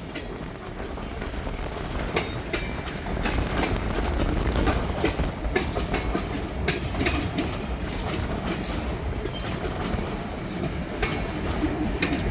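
Train rolling past, its wheels clicking sharply and irregularly over the rail joints above a steady rumble, with wind buffeting the microphone.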